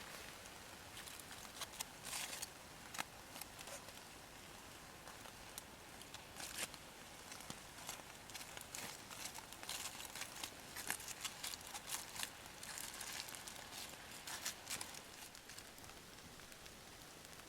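Wood fire crackling faintly, with irregular sharp pops.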